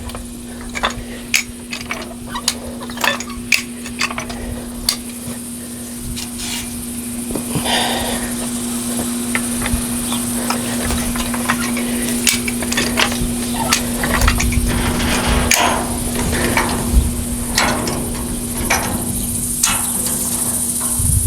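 Hand-operated metal jack being worked, giving irregular metallic clicks and clanks as it lifts the load.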